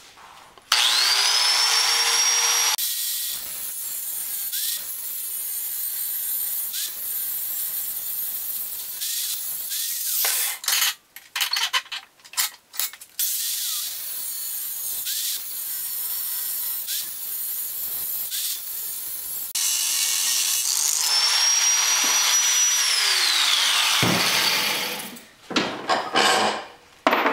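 Angle grinder with a thin cut-off wheel spinning up with a rising whine, then cutting through a heavy steel nut clamped in a vise. The cut breaks off briefly about ten seconds in and resumes, then the grinder runs free and winds down with a falling whine, followed by a few knocks near the end.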